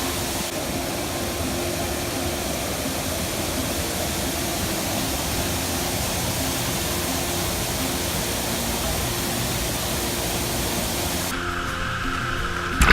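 Steady rush of a waterfall with quiet background music under it. About eleven seconds in, the sound cuts abruptly to a different, steadier hum.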